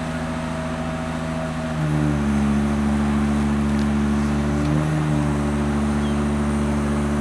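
An engine running steadily. About two seconds in, its speed and loudness step up slightly and then hold.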